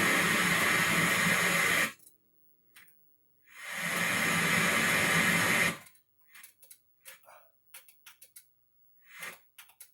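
White noise hissing, cutting off abruptly about two seconds in, then fading back in for about two seconds and stopping again; after that only faint short blips of sound.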